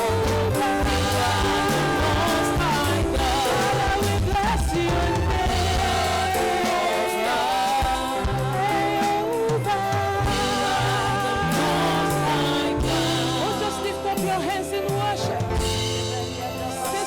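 Live gospel worship music: voices singing over a band with bass and drums.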